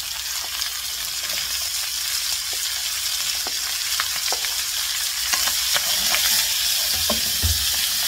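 Chicken pieces sizzling as they brown in cooking oil in a pan, a steady frying hiss with scattered light clicks and taps as chopped onion is tipped in and stirred with a wooden spoon. The sizzle grows a little louder in the second half.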